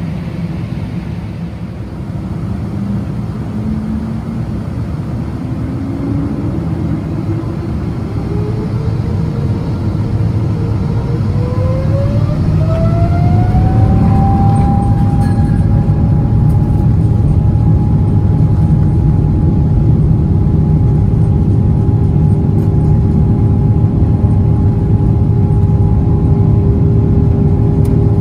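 Boeing 777-200ER's GE90 turbofan spooling up to takeoff thrust, heard from inside the cabin beside the engine. A whine rises steadily in pitch over the first dozen seconds or so as the rumble grows louder, then both hold steady at full power as the takeoff roll gets under way.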